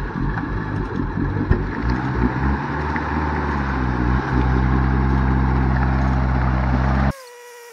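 A Subaru Forester's flat-four engine straining at full throttle while the car is stuck in mud, running rough and uneven for about two seconds, then holding a steady high drone. The engine is very sick and barely running; the driver suspects the ignition coil. The sound cuts off abruptly near the end.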